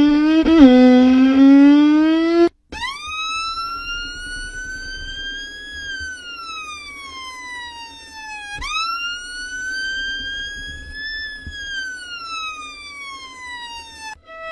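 Violin imitating a siren with long glissandi: first short low slides rising in pitch, then, after a brief break, two slow wails that climb and sink back, the second beginning near the end of the first.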